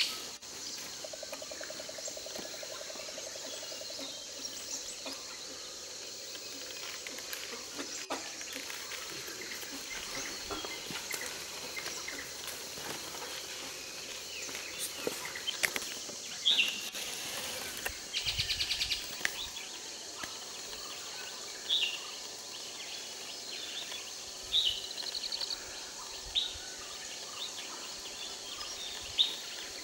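Forest ambience: a steady high insect hiss with scattered short bird calls, including a brief rapid trill past the middle and a quick run of notes near the end. A short buzzing hum comes in the first few seconds.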